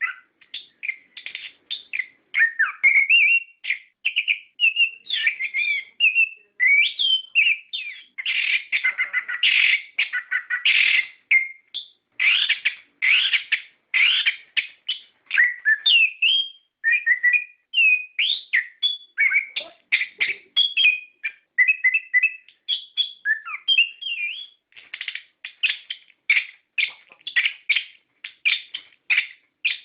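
Orange-headed thrush (anis kembang) singing in full, non-stop song: a rapid run of varied whistles, chirps and trills with hardly a pause. The notes come quicker and more evenly in the last few seconds.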